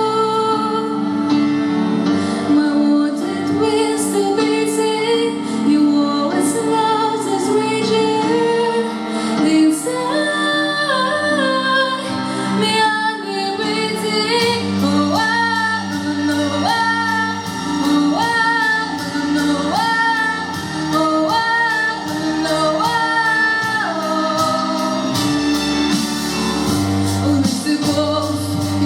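A song with a woman singing long held notes over an instrumental accompaniment; a fast, even beat comes in near the end.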